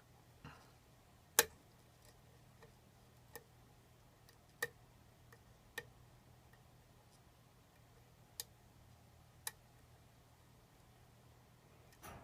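Sharp, irregular clicks a second or more apart as a lock pick works the pins of a pin-tumbler challenge lock, the loudest about a second and a half in.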